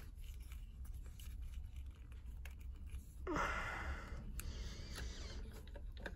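Light clicks and ticks of hard plastic being handled as a clear plastic figure-stand clamp is fitted around an action figure's waist, with a short rushing sound about three seconds in.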